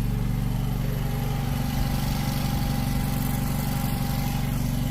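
Hydro jetter's engine running steadily while jetting a sewer line, with a faint higher whine held through most of it.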